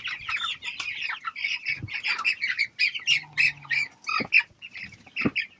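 Young chickens peeping and cheeping in many quick high chirps, broken by a few dull thumps about two, four and five seconds in.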